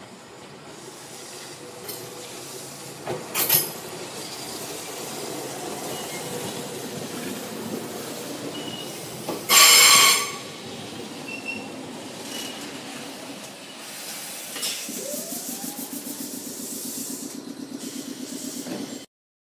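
Gakunan Railway 7000 series electric railcar, a rebuilt ex-Keio Inokashira Line car, arriving at a station platform. Its running noise grows as it approaches, with a few sharp clicks from the wheels early on and a loud hiss about halfway through. Near the end a rising tone gives way to a steady rhythmic throb.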